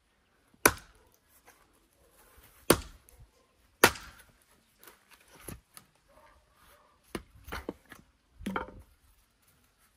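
Axe chopping firewood: three sharp strikes in the first four seconds or so, then several lighter knocks of wood.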